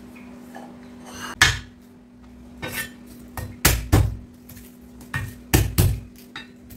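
Kitchen prep clatter: a knife and utensils knocking against a cutting board and dishes in a series of sharp, irregular knocks, a few of them heavy thumps.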